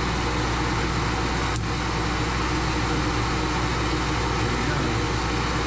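Milling machine running with its automatic quill feed engaged: a steady motor and gear-drive hum, with one sharp click about a second and a half in.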